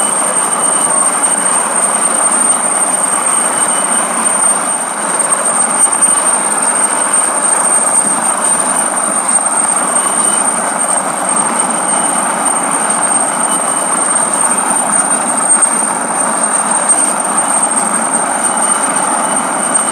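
Coastguard search-and-rescue helicopter hovering low over the sea: a loud, steady rush of rotor and engine noise with a thin, steady high whine above it.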